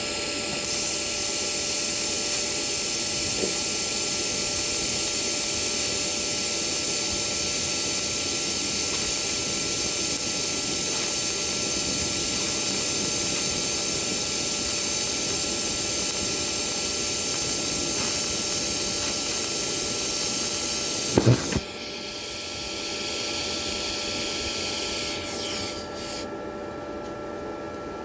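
TIG welding arc from a Toolion MIG-180 Pro burning steadily on mild steel, with ER70S6 filler rod fed by hand: a steady buzzing hiss with a few fixed tones that starts about half a second in and cuts off around 21 seconds with a couple of sharp knocks. A softer hiss follows and fades out a few seconds later.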